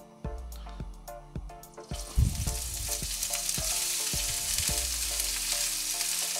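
Bean sprouts hitting hot oil in a wok: a sudden sizzle starts about two seconds in and then holds steady as they fry.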